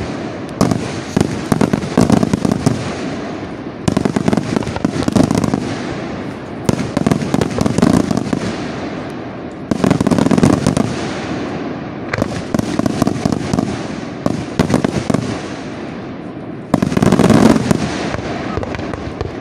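Aerial fireworks shells bursting in rapid, overlapping volleys of bangs. The firing comes in waves that start abruptly about four, seven, ten and seventeen seconds in, with the loudest wave near the end.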